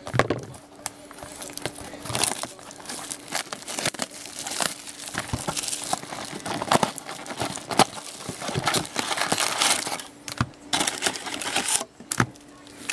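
Plastic wrap crinkling and rustling as it is pulled off a cardboard box of hockey card packs, then the foil card packs rustling and clicking as they are lifted out and stacked, in an irregular run of small crackles.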